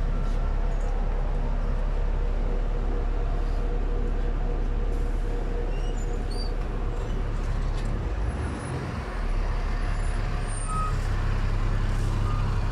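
City bus engine idling at a stop, a steady low rumble with street traffic around it; the rumble eases briefly about two-thirds of the way through.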